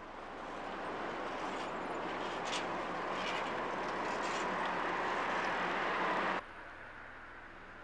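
Street traffic noise, a steady wash of passing cars that grows a little louder. It drops off abruptly about six seconds in to a fainter hiss.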